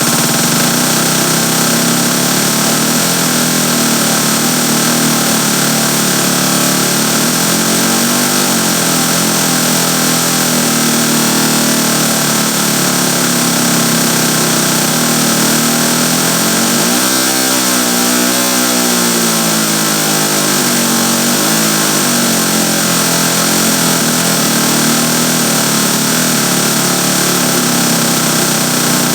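Synthesized chainsaw sound effect made in FL Studio: a loud, steady engine-like drone with hiss over it, its pitch rising and falling like a rev about eight seconds in, then climbing sharply around seventeen seconds and wavering back down over the next few seconds.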